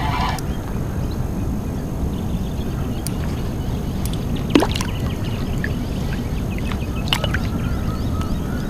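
Water sloshing against a kayak hull, over a steady low rumble, with a few sharp clicks.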